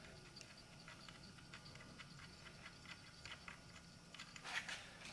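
Faint metallic ticking as the loosened 30 mm clutch nut on a Yamaha YXZ1000R transmission is spun off its threaded shaft by hand, with a louder clink near the end.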